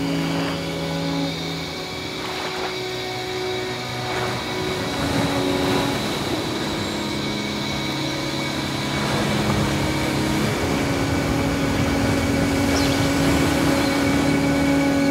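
Slow ambient music of held pad chords that shift every few seconds, over a steady rushing sea ambience.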